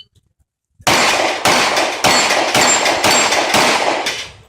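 Glock 30S .45 ACP pistol firing a rapid string of about six shots roughly half a second apart at a steel plate rack, with high ringing from the plates after several hits.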